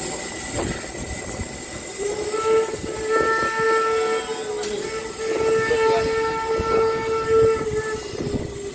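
Steam locomotive whistle blowing one long steady blast of about six seconds, starting about two seconds in, over a constant hiss of steam.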